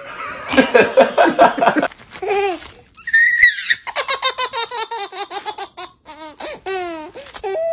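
Baby laughing hard: belly laughs in quick repeated bursts, with a short high squeal about three seconds in.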